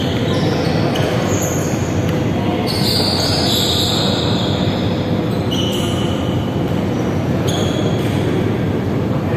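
Steady loud rumble in a large sports hall, with sneakers squeaking on the court floor a few times.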